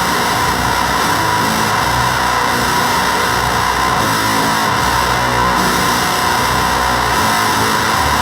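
Electric guitar played through a Gremlin Machine Shop Avedissian octave fuzz pedal: a thick, distorted fuzz tone with low notes changing under a steady hiss.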